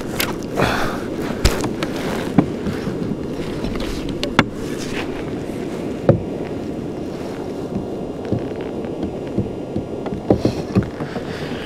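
Steady rush of wind and choppy water around a fishing kayak at sea, with scattered sharp knocks and clicks every second or two.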